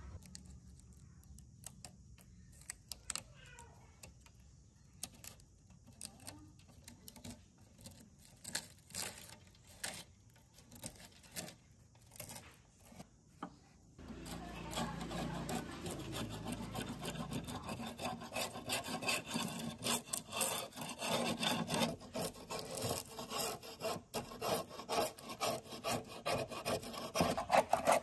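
Flaking paint being picked and peeled off a rusty metal laminator casing by a gloved hand, with scattered crackles and taps. About halfway through, a scraper blade starts scraping the paint off in quick repeated strokes.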